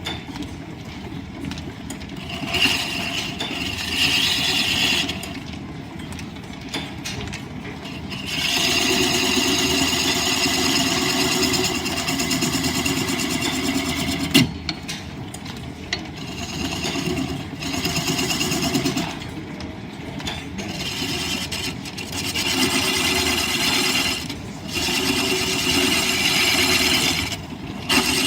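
Line-shaft-driven wood lathe running, with a turning tool cutting the spinning wood in passes of a few seconds each, and a single sharp knock about halfway through.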